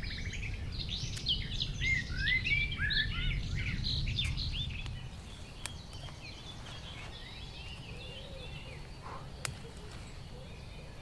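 Songbirds chirping and singing in woodland, many short quick calls, busiest in the first half and thinner later, over a low rumble that fades about halfway through.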